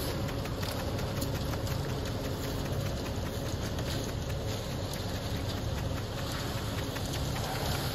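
Concrete mixer truck's engine running steadily, with a gritty crackle of wet concrete being pushed and scraped along with screed boards and rakes.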